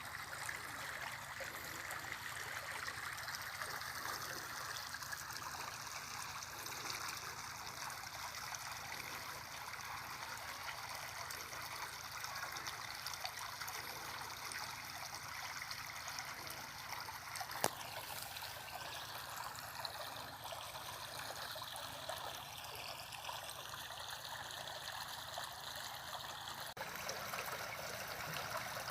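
Steady rush of water gushing from an irrigation pump's discharge hose, strong flow, with a single sharp click about two-thirds of the way through.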